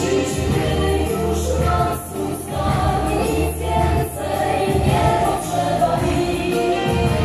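A woman singing live into a microphone with band accompaniment, heard from the audience seats of a concert hall.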